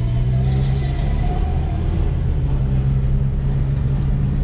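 Steady low drone of a motor vehicle driving: engine hum and road noise.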